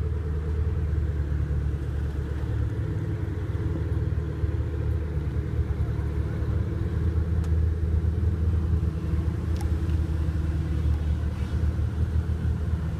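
Car engine idling steadily: a low, even rumble with no revving.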